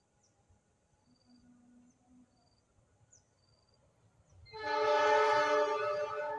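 Horn of an approaching Indonesian diesel passenger locomotive (Argo Parahyangan train) sounding one long blast of about two seconds, starting about four and a half seconds in, with a short extra toot right after. Faint, evenly spaced insect chirps come before it.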